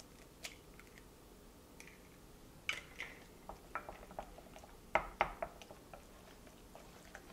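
Eggs opened over a glass bowl, then a wooden spoon stirring them into a spinach and ricotta mixture: faint soft squishing with scattered light clicks and taps against the glass, the sharpest about three and five seconds in.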